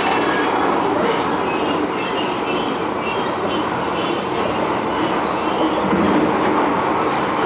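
MTR M-Train electric multiple unit running at speed, heard inside the passenger car as a steady rumble of wheels and running gear, with brief high-pitched squeals now and then.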